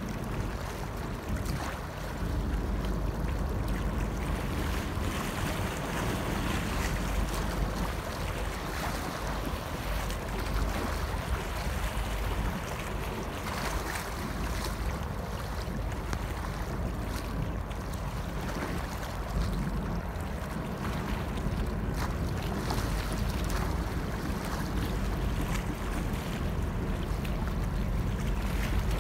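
Wind buffeting the microphone over choppy harbour water, with waves lapping and a boat's engine giving a steady low rumble.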